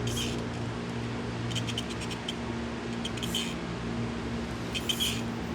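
Short, scratchy strokes of a brush scrubbing a motorcycle brake caliper, coming in small clusters every second or so, over a steady low hum from a garage fan.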